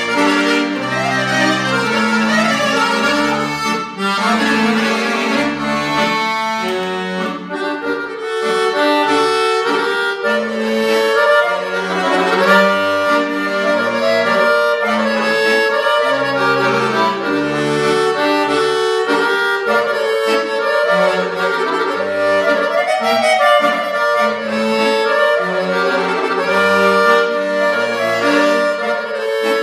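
Solo Dallapè chromatic button accordion playing a Balkan folk song. Sustained reed notes carry the right-hand melody over left-hand bass notes and chords that change in a steady rhythm.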